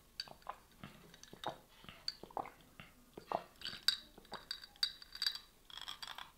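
Ice cubes clinking in a glass tumbler as a straw stirs an iced drink, with sips drawn through the straw. The clicks come irregularly, and a quicker run of clinks comes about four seconds in.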